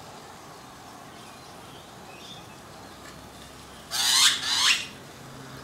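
Australian magpie swooping down, with two short harsh squawks close together about four seconds in.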